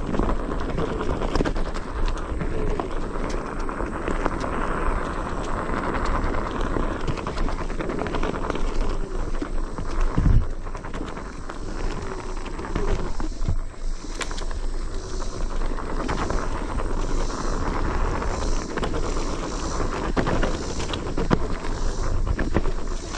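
Mountain bike ridden along a dirt singletrack: tyres rolling over dirt, with a continuous rattle and many knocks from the bike over roots and bumps, and one hard thump about ten seconds in.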